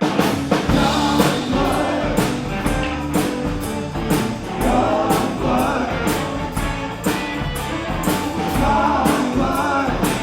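Rock-and-roll band playing at full volume with drums, guitar and singing. The whole band comes in loud at once at the start.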